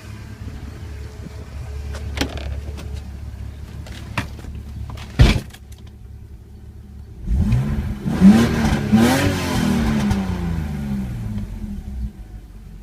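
BMW E46 M3's straight-six engine: a low rumble, one loud bang about five seconds in, then from about seven seconds the engine revved up twice and settling back toward idle.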